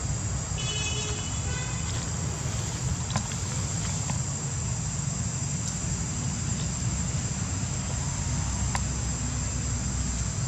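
Steady high-pitched insect drone over a constant low rumble, with a brief high call about a second in.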